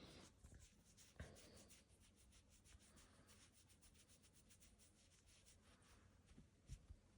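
Near silence: a sleeping cat's faint snoring breaths under a light, scratchy rubbing crackle, with a soft low bump about a second in and another near the end.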